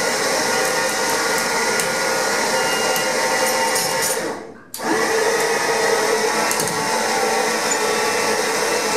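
Overhead electric hoist motor running steadily as it lifts a car body on straps. It winds down briefly about halfway through, then starts again sharply and carries on.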